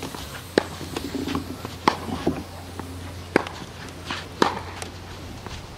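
Tennis rally on a clay court: sharp racket strikes and ball bounces, four clear ones spaced about a second or a second and a half apart.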